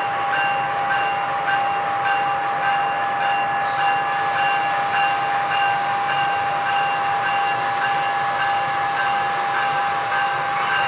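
Sound-equipped HO-scale model PRR P5a electric locomotives running with a freight train: a steady high electric whine over a rushing hum, with a faint regular pulse about twice a second.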